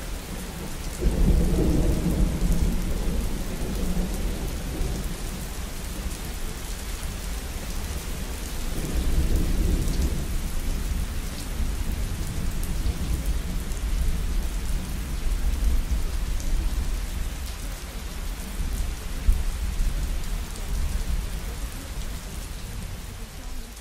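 Steady rain with rolling thunder. Deep rumbles swell about a second in and again around nine seconds in.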